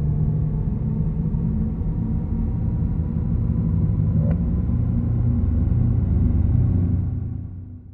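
Audi e-tron GT's electric drive sound: a steady low hum made of several held tones, fading out over the last second.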